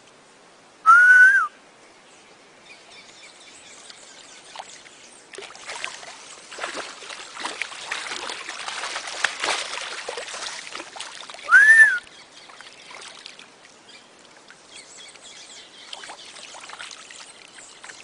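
Water splashing and trickling, busiest in the middle, with two loud short whistles that rise and fall in pitch, one about a second in and one about twelve seconds in.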